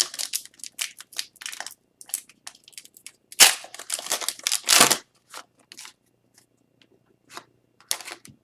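Crinkling and tearing of a foil hockey card pack wrapper, with cards being handled: a run of short sharp crackles, loudest in a dense burst about three and a half to five seconds in.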